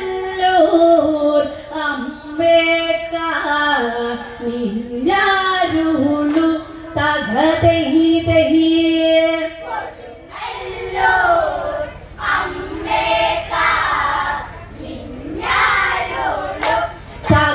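Women singing a Malayalam onamkali song, a Therali pattu. A clear lead voice carries the melody at first, and about ten seconds in a fuller group of voices sings together.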